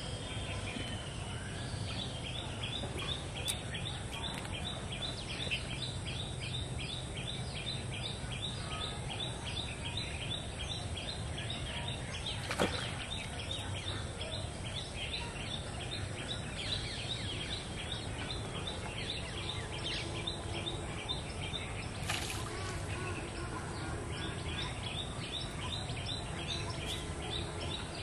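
Rural outdoor ambience: a high chirping call repeated rapidly, about four or five times a second, starting a couple of seconds in, over a steady low rumble. A sharp click stands out about halfway through, with another fainter one later.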